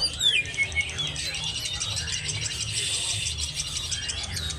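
Caged songbird singing a fast, busy warm-up song before a contest: rapid ticking chirps mixed with short swept whistles, over a low steady hum.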